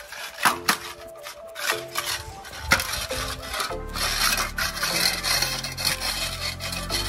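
Labrador puppy eating from a stainless steel bowl: its muzzle scrapes and rubs in the metal bowl, with sharp clinks about half a second in and again near three seconds. Background music with sustained notes plays underneath.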